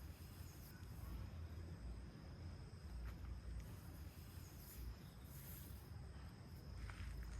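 Insects, likely crickets, trilling as one steady high tone, over a low rumble, with a few faint clicks.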